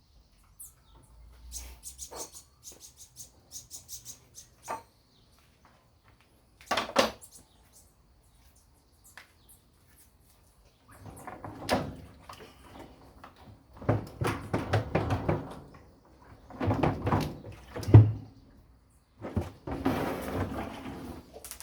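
Irregular knocks, clatter and scraping as parts of a washing machine are handled during disassembly: the inner basket is being worked free and moved. Scattered clicks come first, a single thump follows about seven seconds in, and bouts of rattling and scraping fill the second half.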